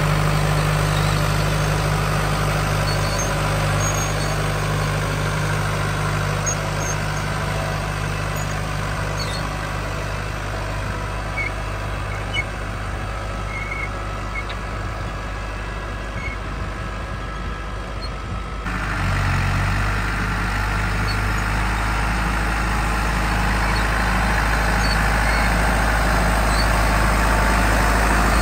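New Holland Ford 7740 tractor's diesel engine running steadily while it pulls a four-furrow plough. The engine note changes abruptly about two-thirds of the way through, then grows louder toward the end as the tractor comes closer.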